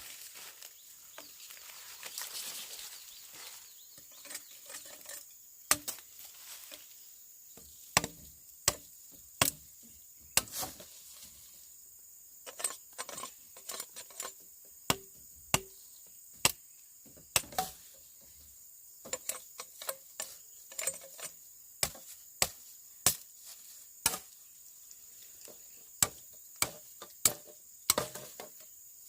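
Sharp chopping blows from a hand tool, irregular and a few seconds apart at first, then coming up to one or two a second with short pauses. A steady, thin, high buzz of insects runs underneath.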